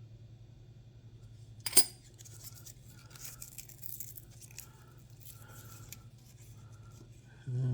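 A silver Walking Liberty half dollar clinks once against another coin about two seconds in, with a short metallic ring, followed by faint rustling and scraping as the coins are handled.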